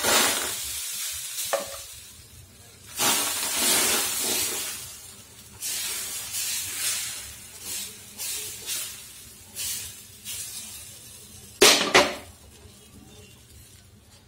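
Wheat dosa batter sizzling on a hot dosa tawa as a steel ladle pours it and spreads it outward in circles, in repeated hissing, scraping sweeps. Two short, louder bursts near the end.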